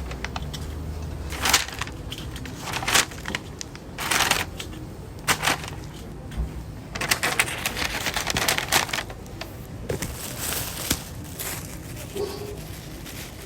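Irregular rustling, crinkling and clattering as goods and plastic bags are handled at a market stall, a short burst every second or so over a low background hum.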